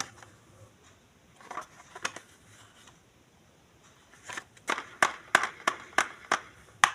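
Toys and packaging being handled in a small room: a run of sharp clicks and taps, with a short rustle about a second and a half in, a quieter gap, then clicks again at about three a second.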